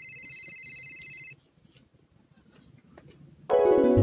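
Edited-in electronic sound effects: a trilling ring like a phone ringtone for about the first second and a half, then a short hush, then a loud burst of synthesized musical notes about three and a half seconds in.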